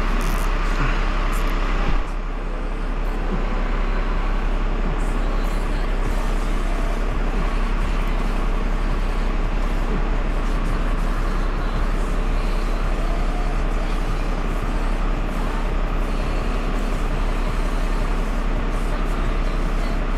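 Truck engine running steadily under load, the kind that drives a truck-mounted hydraulic crane, with a short loud knock about two seconds in after which the sound dips briefly and comes back.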